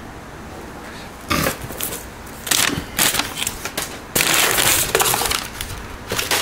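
Crumpled packing paper rustling and crinkling as a hand rummages through a cardboard shipping box, in a run of irregular bursts starting about a second in, the longest about four seconds in.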